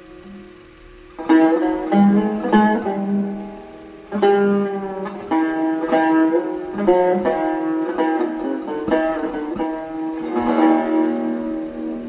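Turkish tanbur (long-necked fretted lute) played solo in an unmetered improvisation (taksim) in makam Hüzzam: runs of plucked notes that ring on. It starts about a second in after a fading note, with a short pause near four seconds.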